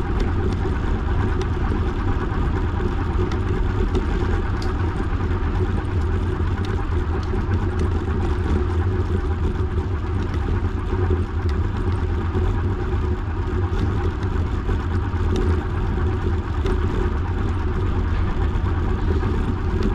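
Steady rushing rumble of a bicycle ride: wind on the microphone and tyres rolling on the path, deepest in the low end and unbroken throughout.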